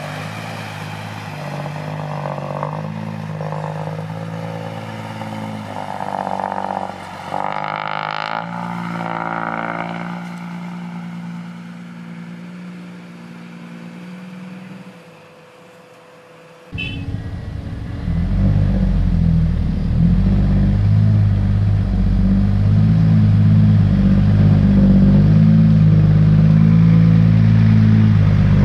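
Heavy diesel dump-truck engines working under load. In the first half the pitch rises and falls as they rev. About two-thirds of the way in the sound cuts abruptly to a louder, deeper, steady engine drone.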